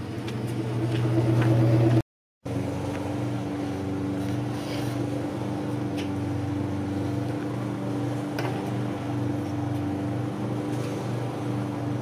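A motor running with a steady low hum at an unchanging pitch, cut off for a moment about two seconds in.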